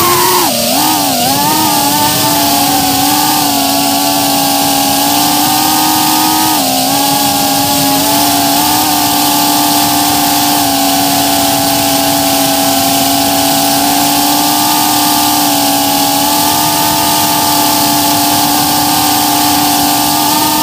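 A 3-inch FPV quadcopter's brushless motors and propellers whine, heard close up, over an even hiss. The pitch wavers up and down with the throttle for the first couple of seconds, dips briefly about seven seconds in, then holds steady.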